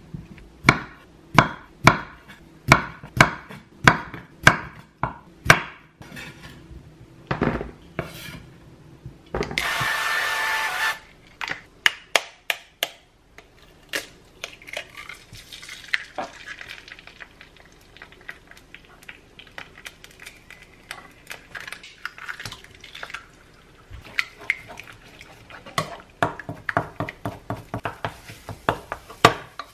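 Kitchen utensils knocking on cookware: evenly spaced clinks, about two a second, for the first few seconds, a brief hiss about ten seconds in, then irregular clinks and scraping of stirring with faint sizzling, busier near the end.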